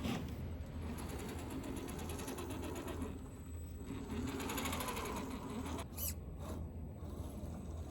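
Radio-controlled scale crawler's electric motor and gearbox whirring, the pitch rising and falling with the throttle, with a short sharp knock about six seconds in.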